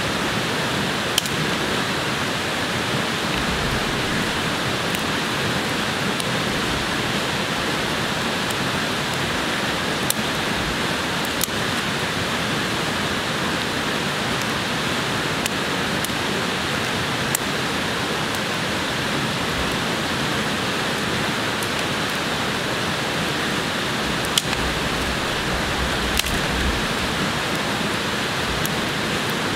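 Steady, loud rush of water, with occasional sharp ticks scattered through it.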